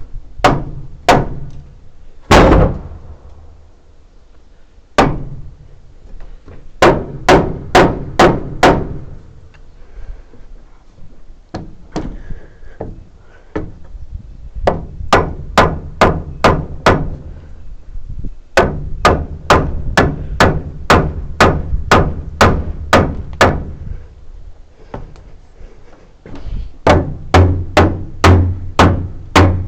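Hand hammer striking a wooden frame, in runs of steady blows about two to three a second with short pauses between the runs.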